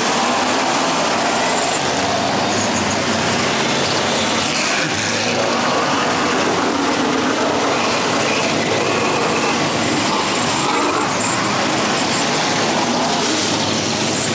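Several V8 muscle race cars rolling past one after another at low speed, their engines running loudly with small rises and falls in revs.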